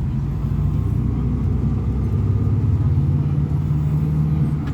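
Diesel engine of a Neobus Thunder bus on an Agrale MA 10.0 chassis running, a steady low drone that grows stronger about halfway through.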